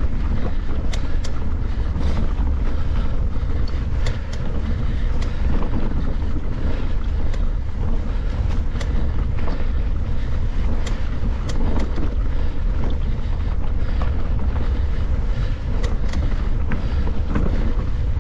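Wind rumbling on the microphone while riding a mountain bike along a trail, with frequent short clicks and rattles from the bike over rough ground.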